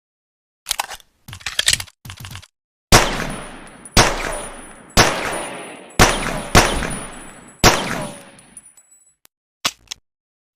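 Pocket pistol gunshot sound effect: six sharp shots, roughly a second apart, each with a ringing tail that dies away. A few short mechanical clicks come before the shots and two faint clicks after them.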